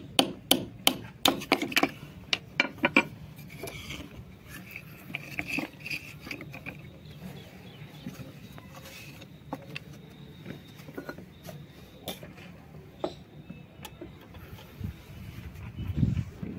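Knife blade scraping and slicing into soft white shale stone: a quick run of about ten sharp, scratchy strokes over the first three seconds, then sparser, quieter scrapes and clicks of stone, with a low thump near the end.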